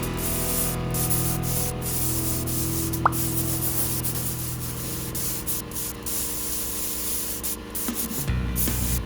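Sanding paper rubbed back and forth over a car body panel coated in primer surfacer, a continuous scratchy hiss with short breaks, under background music.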